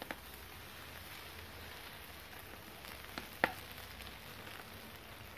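Mussels and pasta sizzling in hot oil on a cast-iron saj pan, a steady frying hiss. A few sharp clicks cut through it, the loudest about three and a half seconds in.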